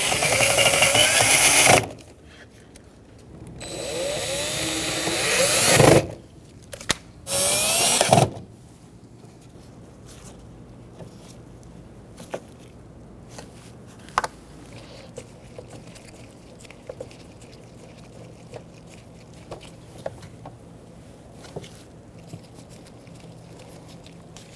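Power drill driving the door-panel screws in three runs, the motor's pitch shifting as each screw goes in. The second run builds up louder, and the third is short. Then only a few faint clicks of handling follow.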